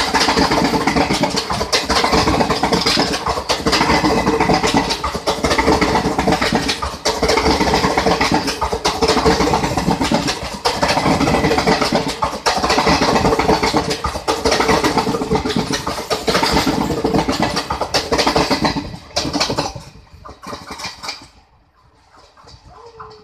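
Indian Railways passenger coaches passing close at speed: loud rumble and rattle of wheels on the rails, dipping regularly as each coach goes by, with a steady tone under it. The noise falls away quickly once the last coach passes, about nineteen seconds in.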